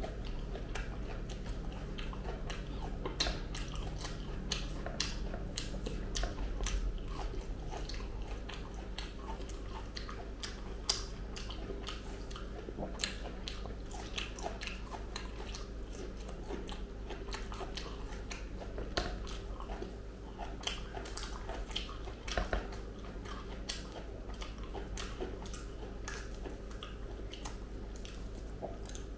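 Close-up chewing and biting of ripe jackfruit flesh, with many short wet mouth clicks and smacks spread irregularly throughout. A steady low hum runs underneath.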